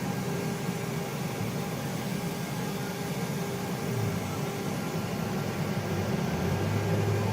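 3D printer running: a steady fan-like hum with whining tones that come and go as the motors move, and a deeper hum setting in near the end.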